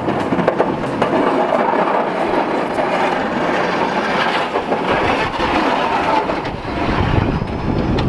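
Snow plow blade on a Ford F-250 pickup scraping along the pavement and pushing a rolling wave of snow, with the truck's engine running under it. A continuous, grinding scrape with scattered clicks and knocks.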